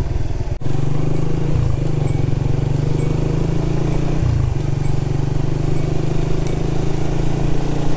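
Honda Winner 150 single-cylinder motorcycle engine running under way at a steady speed, its pitch dipping briefly twice.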